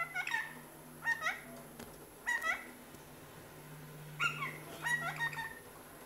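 Parakeet calls: short, sharp chirps with a quick sweep in pitch, coming in clusters of two or three every second or so, with a busier run of calls near the end.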